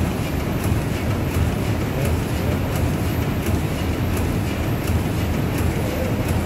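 Large stationary steam pumping engines running: a steady mechanical rumble with a low hum, and a light tick repeating about every 0.7 seconds.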